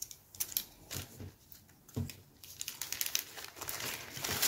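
Clear plastic bag crinkling and rustling in irregular crackles as it is handled to get a plastic model-kit sprue out, with a couple of knocks about one and two seconds in.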